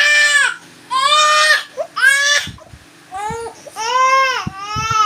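Baby crying in about six separate wails, each under a second and arching up then down in pitch.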